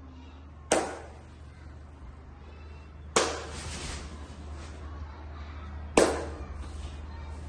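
Three sharp thumps about two and a half seconds apart, each trailing off in a short echo, the last the loudest, over a steady low hum.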